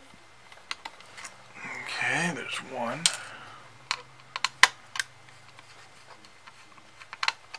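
Scattered sharp clicks and taps of a small screwdriver and fingers working the screws of an Acer laptop's copper CPU heat sink. A short wordless voice sound comes about two seconds in.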